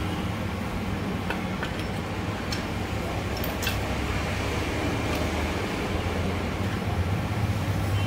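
Steady low rumble of motor vehicles, with a few light metallic clicks as gearbox shafts are set into an open motorcycle crankcase.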